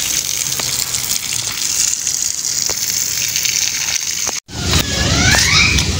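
Water jetting from a garden hose onto plants and wet paving: a steady hissing gush. About two-thirds of the way in the sound cuts off abruptly and is followed by a low rumble with a few high gliding squeaks.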